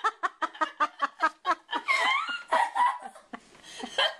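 A girl laughing hard in a rapid run of short breathy bursts, about six a second, breaking into high squeals of laughter, too helpless with laughter to keep reading aloud.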